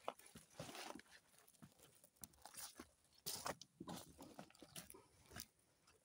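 Faint, irregular crunching and rustling: scattered short crunches with a couple of longer scraping rustles, one about half a second in and one near the middle.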